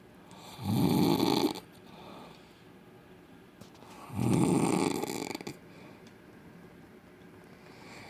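A man snoring very loud in his sleep: two snores about a second long each, roughly three and a half seconds apart, with quiet breathing between.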